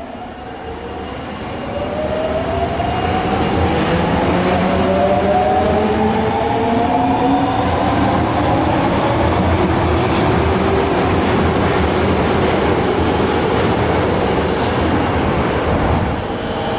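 Osaka Subway Tanimachi Line 22 series electric train accelerating: the traction motors give a whine of several tones rising in pitch over the first seven seconds or so, over steady wheel and rail noise.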